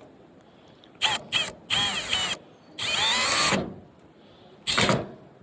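Power drill driving a screw back in, run in five short trigger bursts, the longest close to a second, its motor pitch sliding up and down with each.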